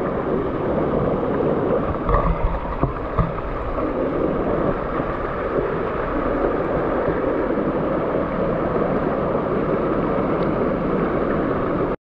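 Shallow mountain stream rushing and gurgling over stones close by, a steady loud flow. A few low bumps come about two to three seconds in.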